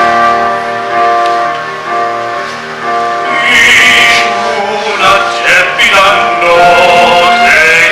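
Live stage-musical song: held notes from the accompaniment and voices for about three seconds, then singing comes in over the accompaniment, moving more quickly in pitch.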